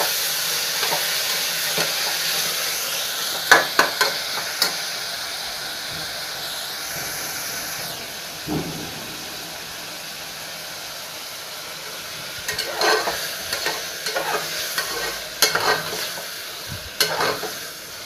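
Chopped onions, tomatoes and green chillies sizzling in hot oil in a pressure cooker, the sizzle slowly dying down. A steel ladle stirs them, scraping and knocking against the pot around four seconds in and again in a busier spell from about twelve seconds.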